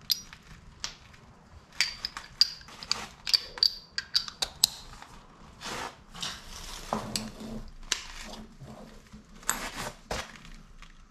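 Irregular metallic clinks and clicks of hand tools, a socket wrench and socket handled at a brake caliper's 21 mm bolt. A flurry of sharp, ringing clinks comes about two seconds in, then softer scraping and a few more clicks near the end.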